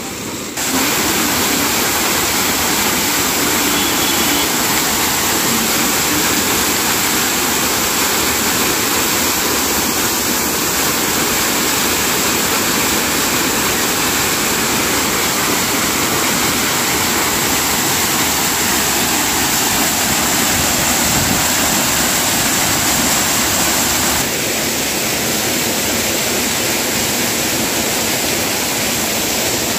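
A small hillside waterfall pouring down a rock face: a loud, steady rush of falling and splashing water. It gets louder about half a second in and drops slightly near the end.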